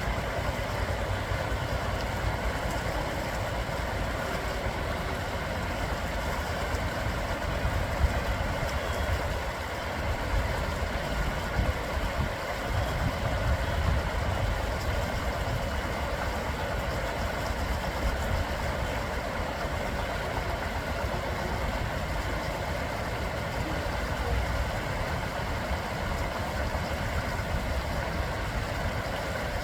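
Flowing water running steadily, an even continuous rush with a low rumble underneath.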